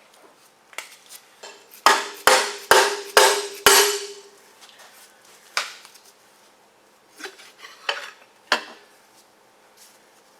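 Five quick, loud metal-on-metal strikes about two a second, each with a short ringing tone, then a few lighter metallic clinks spread over the next several seconds.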